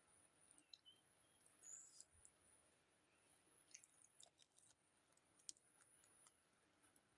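Near silence with faint, scattered small clicks, the sharpest one about five and a half seconds in.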